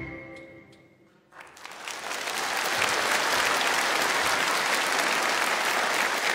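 The final held note of an ensemble piece fades out, and about a second in an audience breaks into applause that swells and then continues steadily.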